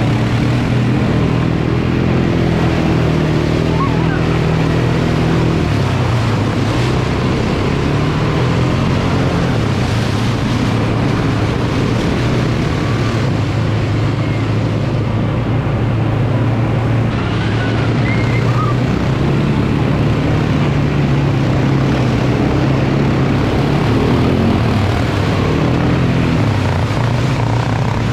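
ATV (quad bike) engine running under way, its pitch shifting up and down with the throttle several times.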